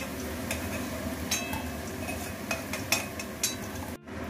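Steel spatula scraping and clinking against a metal kadai as fried potatoes are lifted out of hot oil, over a steady sizzle. There are a few sharp clinks, the loudest about three seconds in.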